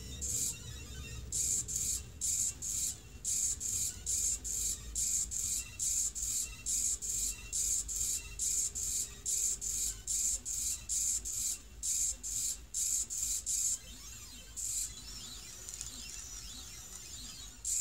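AxiDraw pen plotter's stepper motors whining in short high-pitched bursts, about two a second, as the pen moves from one straight stroke to the next. About fourteen seconds in the bursts give way to a quieter, continuous whine that rises and falls in pitch as the pen traces a circle.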